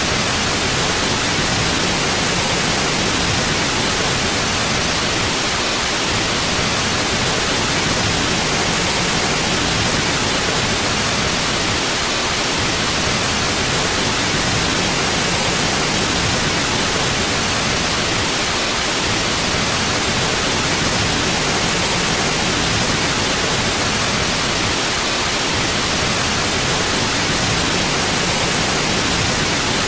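Steady white noise: an even, unchanging hiss across the whole range of pitches.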